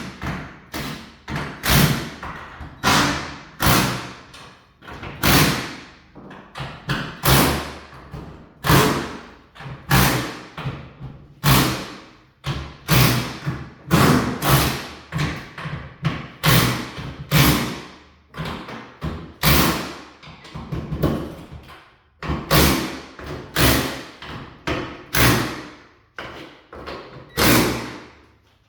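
A long run of loud, irregular thumps and knocks, roughly one a second, each ringing out briefly.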